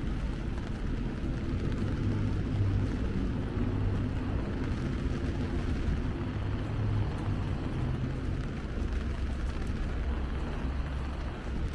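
Steady low rumble of city traffic on wet streets, with an engine drone that swells for several seconds and then eases, over a light hiss.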